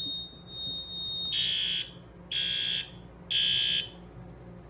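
Fire alarm horns on a Notifier NFS-320C demo system sounding the temporal-three evacuation pattern: three high-pitched half-second blasts about a second apart, then they stop. A steady high tone, probably the panel's own sounder, cuts off as the first blast begins.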